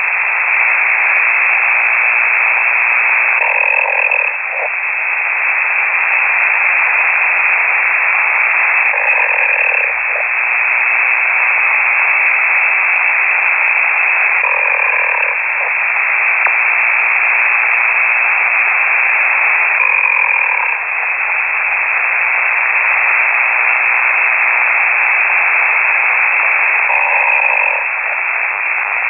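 Amateur radio operator snoring over the air, heard through a KiwiSDR shortwave receiver. A steady radio hiss, narrowed like a voice channel, carries a snore about every five and a half seconds, five in all.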